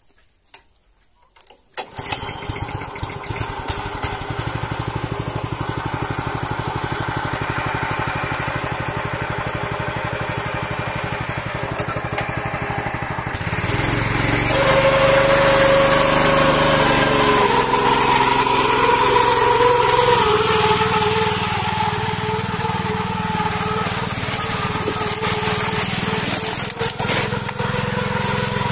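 Yavuz 300 walk-behind tiller engine starting up about two seconds in and running steadily, then revving up and getting louder about halfway through as it works under a heavy load of firewood on its trailer.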